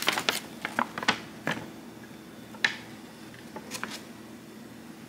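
Stapled paper pattern pages rustling and crinkling as they are opened and turned, with a quick run of crinkles at first and then a few single sharp crackles.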